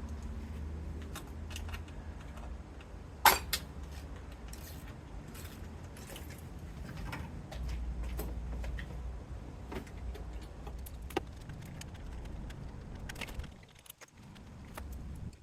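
Metal hand tools and parts clinking and clicking during work in a car's engine bay, with one loud sharp clink about three seconds in, over a steady low rumble that fades near the end.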